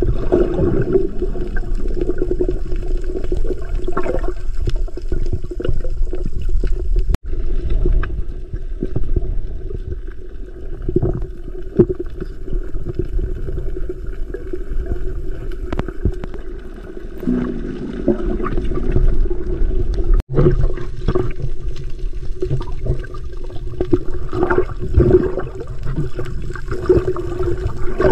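Muffled underwater water noise picked up by a submerged camera: a steady gurgling wash with a low hum, dropping out briefly twice.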